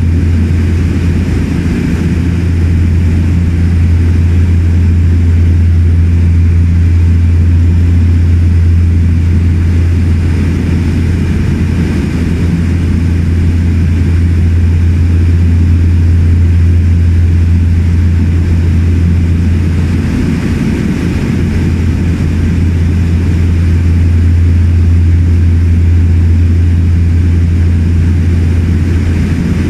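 A de Havilland Twin Otter's twin PT6A turboprop engines and propellers in cruise, heard inside the cabin as a loud, deep, steady drone.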